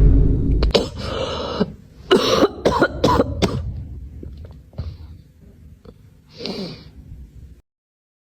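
A run of coughing: a loud cough at the start, then several more coughs over the next few seconds that grow fainter, and one last cough about six and a half seconds in; then the sound cuts off.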